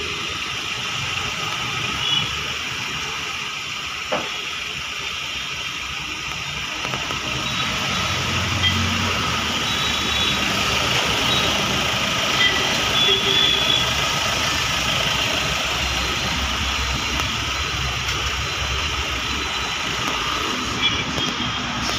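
Ford Endeavour's diesel engine idling steadily during an engine carbon-cleaning treatment, with the cleaning machine's hose feeding into the air intake, and a few short knocks.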